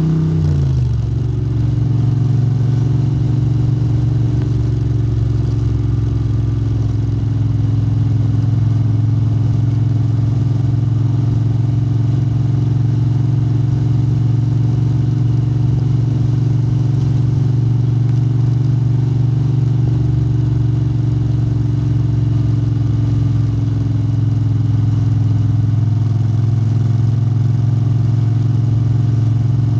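Moto Guzzi 90° V-twin through Lafranconi silencers, running loud and steady. Its pitch drops in about the first second, then holds even at a constant engine speed.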